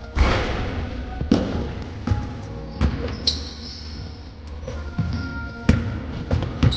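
Basketball play on a hardwood gym floor: a loud knock just after the start as the shot hits the hoop, then the ball bouncing in single thuds, with sneakers squeaking briefly, over background music.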